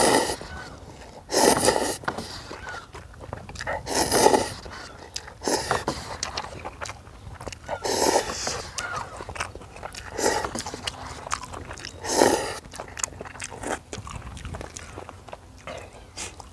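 Ramen noodles being slurped: about six loud slurps, one every two to four seconds.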